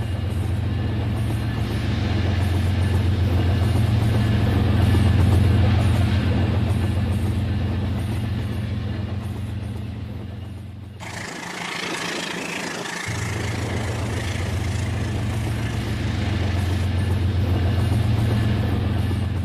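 Model electric train running, a steady low hum with rushing rolling noise above it. The hum drops out for about two seconds near the middle, where the sound changes suddenly.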